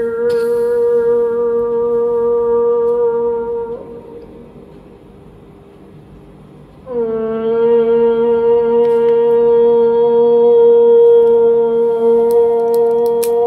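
Chanted vocal drone held on one steady low pitch with strong ringing overtones, a resonance-style chant. It breaks off about four seconds in and starts again about three seconds later, played back from a video through a speaker.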